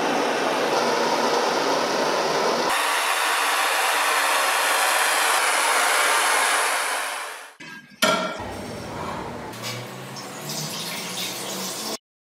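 Gas blowtorch flame running steadily, changing in tone a few seconds in, then fading out. A sharp clink follows, then quieter splashing of liquid.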